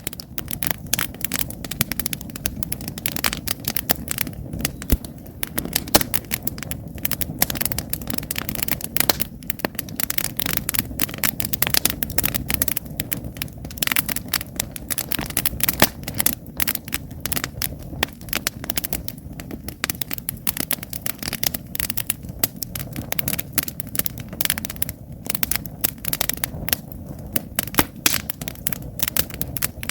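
Wood campfire burning, with dense, irregular crackling and popping from the logs over a steady low rush of the flames.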